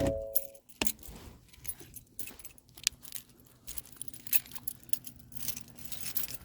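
Light metallic jingling and scattered small clicks of keys being handled. A short chime tone dies away right at the start.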